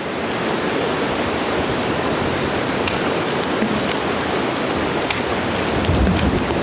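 Playback of a rain sound-effect mix: steady heavy rain hiss with scattered drop ticks, and a low rumble swelling up about six seconds in.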